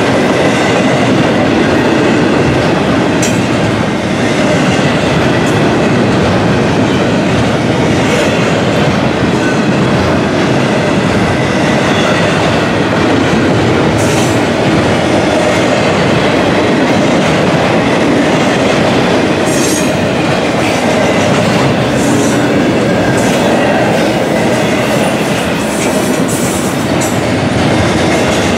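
Double-stack intermodal container well cars rolling past on steel wheels and rails: a loud, steady rolling clatter, with brief high-pitched wheel squeals now and then.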